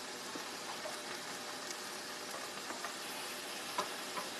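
Steady sizzle of coated chicken pieces frying in a pan on the stove, with a couple of light utensil clicks near the end as the pan is stirred.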